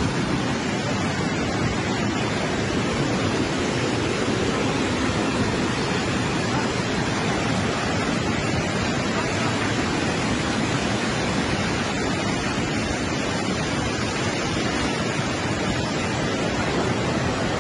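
Flash-flood torrent of muddy water rushing past, a loud, steady, unbroken noise of churning water.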